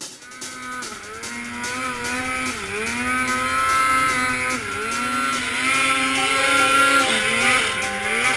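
Arctic Cat M8 snowmobile's two-stroke engine running hard through deep powder, its pitch dipping and climbing back several times as the throttle is eased and opened again, over a steady hiss.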